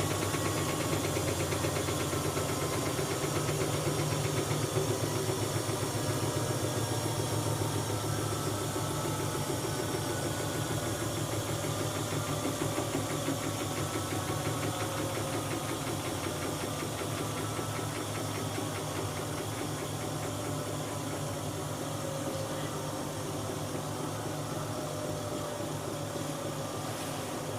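Siemens Siwamat 7163 washing machine running with a steady hum and a fast, even vibration. Its motor whine slowly falls in pitch while the level gradually drops, as the drum's spin slows.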